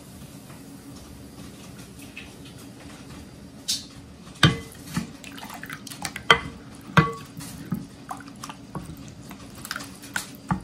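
Metal ladle stirring and scooping rice-flour batter in a glass bowl, clinking sharply against the glass several times from about four seconds in, with batter splashing and dripping off the ladle, over a faint steady hum.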